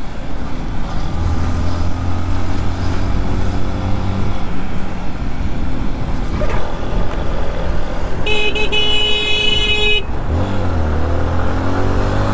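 Motorcycle riding in traffic, its engine running, with a vehicle horn held in one blast for about a second and a half about eight seconds in.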